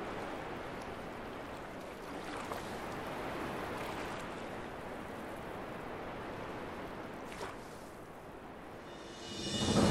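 Soft, steady wash of sea water and small waves, with a few faint clicks.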